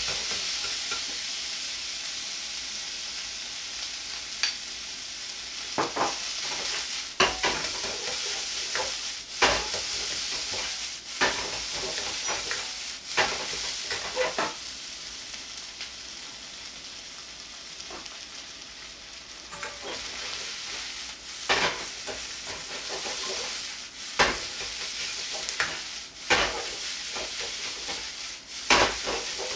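Fried rice sizzling steadily in a wok over a gas flame. It is stirred and scooped with a metal ladle, which knocks and scrapes against the pan at irregular intervals, less often in the middle stretch.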